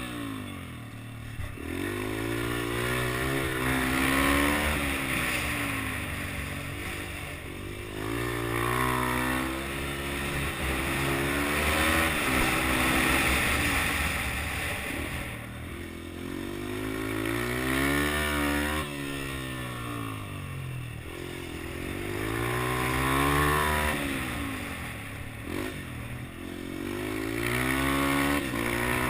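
Yamaha TT-R125 dirt bike's four-stroke single-cylinder engine revving up and easing off over and over, its pitch rising and falling every few seconds as it accelerates down the straights and backs off into the turns of a flat track.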